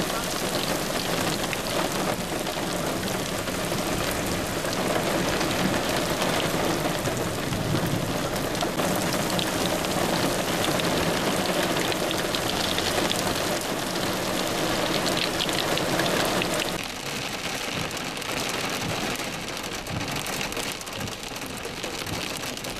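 Heavy rain pouring steadily, a dense hiss of falling water. About seventeen seconds in it turns quieter and duller, as rain pattering on a car's windshield.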